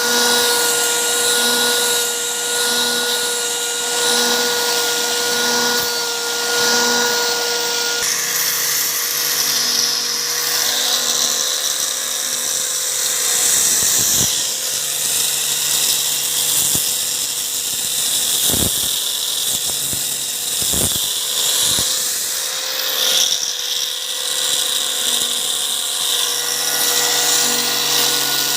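High-speed electric power tool running steadily on wood with a whining tone, its sound changing about eight seconds in, with a few brief sharp sounds in the middle.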